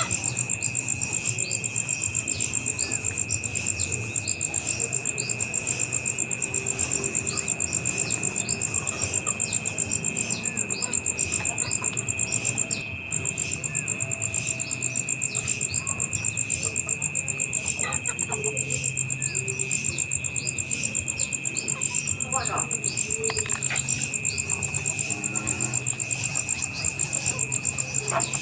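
Steady chorus of trilling insects, a fast high pulsing trill with a lower steady tone beneath it, breaking off for a moment about halfway through. Scattered short bird chirps come and go over it.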